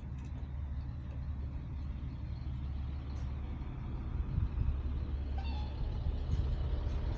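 Harley-Davidson Road Glide Special's V-twin engine idling steadily.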